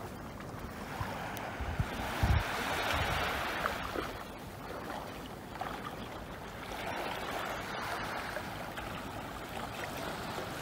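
Small sea waves washing in and out, the wash swelling and fading over a few seconds at a time.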